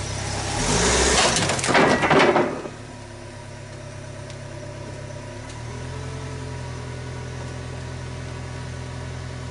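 An ATV sliding and dropping off a pickup's tailgate as the truck pulls out from under it, a loud scraping clatter lasting about two seconds. Then the pickup's engine idles steadily, a little louder from about halfway.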